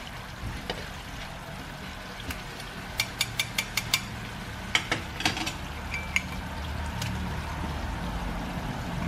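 Coconut-milk curds sizzling in their own oil in a metal wok, at the late stage of cooking coconut milk down into coconut oil, with the curds browned. A metal ladle stirs and clinks in the pan, and there is a quick run of sharp clicks about three seconds in.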